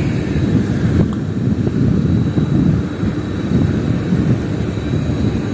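Wind buffeting the microphone: a loud, uneven low rumble, with a faint steady high tone running under it.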